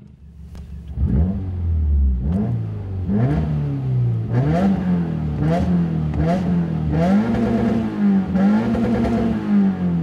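2016 Subaru WRX's turbocharged flat-four with a catted downpipe and muffler delete, revved in neutral while standing still and heard from inside the cabin: about six quick blips, each rising and falling, then two longer revs held high near the end.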